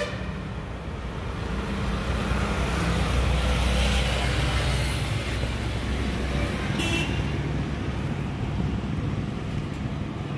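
Road traffic: vehicles passing on a street, a steady rumble that swells as one passes close about four seconds in, with a short high-pitched beep about seven seconds in.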